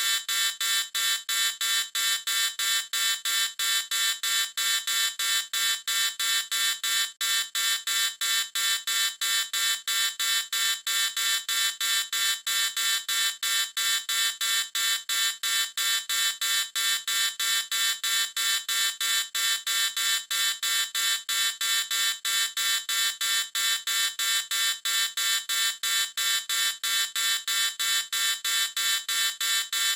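Electronic alarm beeping rapidly and evenly, about four high-pitched beeps a second, without letting up.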